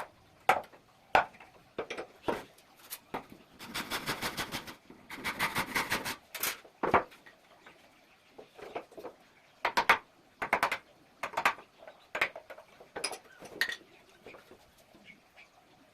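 Hand-tool work on a wooden window frame: scattered knocks and metallic clinks, with two quick runs of rapid light tapping about four and six seconds in.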